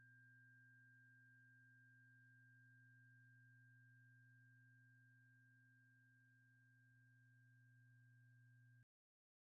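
Near silence: a faint steady low hum with a thin high tone above it, which cuts off suddenly to dead silence near the end.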